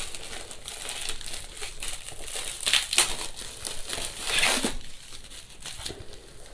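Plastic bubble wrap crinkling and crackling as hands pull and unwrap it from a parcel, in irregular bursts, with louder crackles about three seconds in and again around four and a half seconds.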